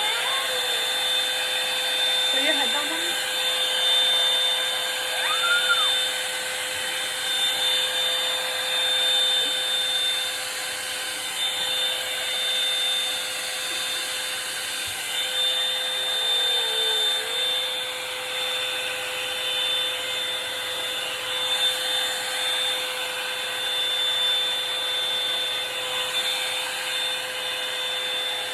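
Revlon One Step hot-air brush dryer running steadily while being worked through hair: an even rush of blowing air with a steady high whine over a lower hum.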